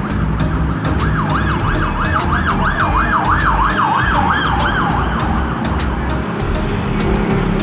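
An emergency-vehicle siren yelping, its pitch rising and falling quickly about three times a second. It starts about a second in and fades out after about four seconds, over the steady low rumble of road traffic.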